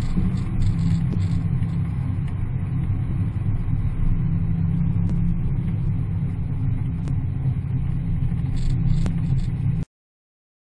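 A muscle car's engine running steadily as the car drives around a race track, a low, even sound with no clear revving. It cuts off abruptly near the end.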